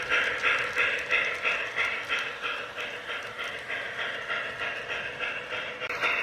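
O gauge Lionel LionChief 0-8-0 model steam locomotive running with its steam chuffing sound, an even beat of about four chuffs a second. The sound fades somewhat in the middle and grows louder again near the end.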